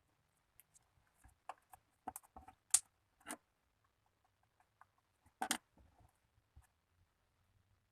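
Slime being squished and played with by hand: an irregular scatter of small sticky clicks and pops, the loudest near three seconds in and again about five and a half seconds in.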